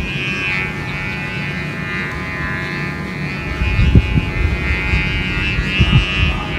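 Sumba kite's hummer (guri) buzzing high overhead: a steady, many-toned drone that swells and fades as the kite moves. Low wind rumble on the microphone, with louder gusts about four and six seconds in.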